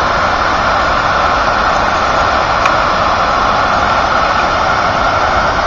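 Floodwater pouring over a river dam in a steady, loud rush of water.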